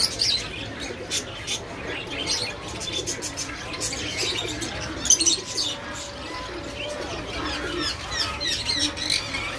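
Caged birds chirping and calling: many quick, high chirps and short whistles throughout, with a louder squawk about five seconds in.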